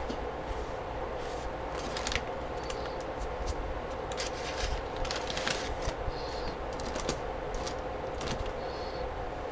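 A steady background hum, with short, faint scratchy strokes scattered through it: a paintbrush working across paper.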